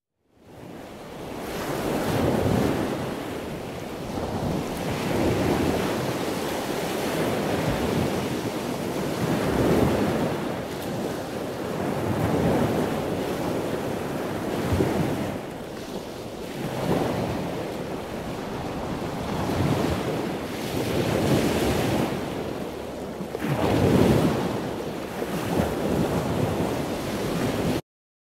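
Ocean surf: waves breaking and washing in, swelling and ebbing every two to three seconds. It fades in at the start and cuts off abruptly near the end.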